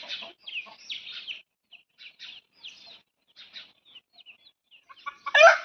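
Chicks peeping in short, high chirps that fall in pitch, scattered throughout. Near the end a rooster starts to crow loudly.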